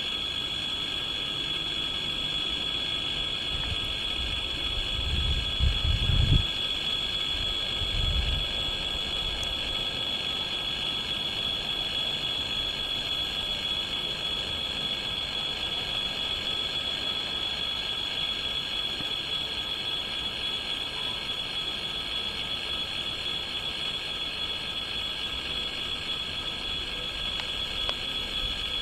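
A train running on the line, with a steady high-pitched whine over a constant rolling noise and a brief low rumble about five to six seconds in.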